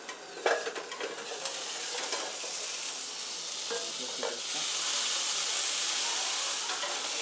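A beef burger patty sizzles in a hot nonstick grill pan, with a few light taps and scrapes of a slotted metal spatula. The sizzle grows louder about halfway through, as the spatula presses down on the patty.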